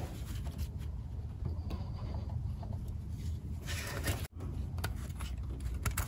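Quiet rubbing and handling noise of gloved hands working an air/fuel ratio sensor's plastic wiring connector in an engine bay, with a few faint clicks.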